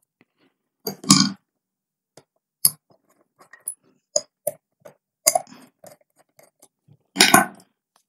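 Light clicks, taps and rustles of hands twisting stranded copper wire and working it into the screw terminals of a plastic switch-socket board, with two louder brief rustles, one about a second in and one near the end.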